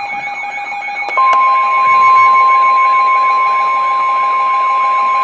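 NOAA Weather Radio warning alert: a steady electronic alarm tone with a repeating warble under it. About a second in, the louder steady 1050 Hz warning alarm tone joins it, signalling that a warning, here a severe thunderstorm warning, is about to be read.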